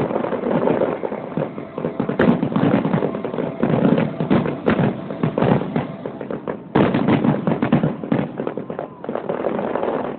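Fireworks finale: aerial shells bursting in a rapid, continuous barrage of bangs and crackles, with a short lull about six and a half seconds in before the barrage picks up again.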